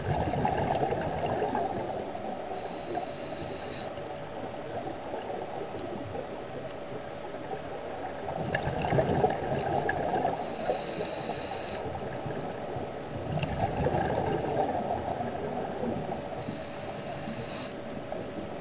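Scuba diver's breathing through a regulator underwater: three bubbling, gurgling bursts of exhaled air, each followed by a short high hiss as the diver inhales.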